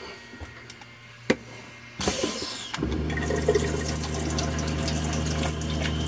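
A single sharp click about a second in, then the faucet is opened and hot water rushes into a stainless-steel sink; a moment later the camper's water pump starts and hums steadily under the running water.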